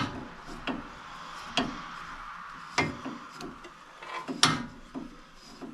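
A series of sharp, irregular metallic clicks and knocks, about seven in all, the loudest about four and a half seconds in: hand tools and parts being handled at work on a truck's steering linkage, over a steady background hiss.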